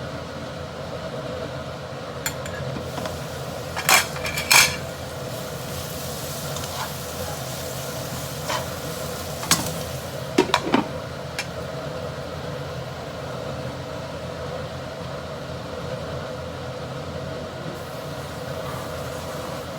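Metal cookware clanking a handful of times during cooking, loudest about four seconds in and again around ten seconds in, over a steady humming kitchen noise.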